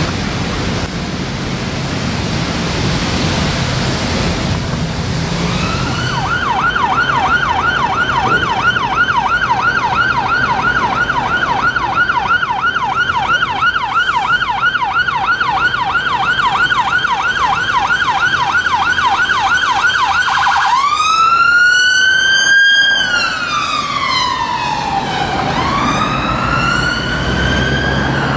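Steady hiss of rain and wet traffic. Then, about five seconds in, an ambulance rapid response car's siren starts on a fast yelp of about three sweeps a second. Near the end it switches to a slow wail rising and falling.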